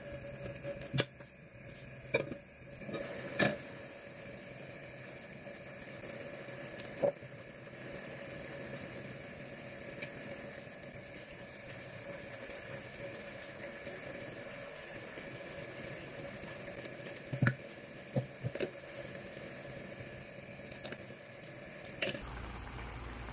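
Broth simmering and bubbling in a frying pan of chicken pieces, a steady soft sizzling bubble. A handful of sharp knocks and clatters of utensils against the pan stand out above it, a cluster early on and another about two thirds of the way in.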